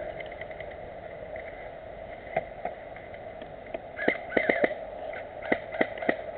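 Airsoft guns firing: sharp snapping shots, a couple of single shots, then a quick string of four and a few more near the end, over a steady background hiss.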